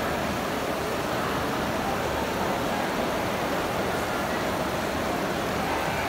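Indoor fountain's water jets and cascading channel splashing in a steady, even rush of water.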